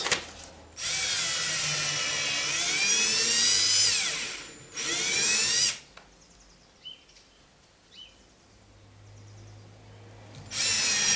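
Cordless drill motor whirring in bursts under the trigger. There is a long run about a second in whose pitch dips, rises and then falls away, a short burst around five seconds, and the drill starts again near the end.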